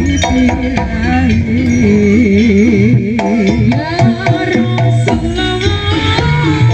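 Traditional East Javanese bantengan accompaniment music: hand drums beating in a quick rhythm under a melody that wavers up and down, with sustained tones beneath.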